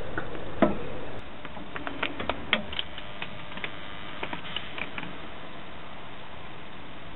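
Hulme-Martin HM1300D impulse heat sealer's mechanism clicking during its heat-and-cool sealing cycle: one sharp click about half a second in, a cluster of clicks around two to three seconds in, and lighter ticks until about five seconds in, over a steady hiss.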